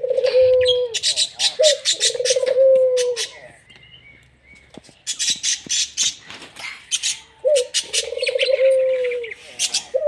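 Captive ringneck doves cooing: low, rolling coos near the start, about two seconds in, and a longer one later on, each dropping slightly in pitch at the end. Quick runs of sharp, high chirps sound between the coos.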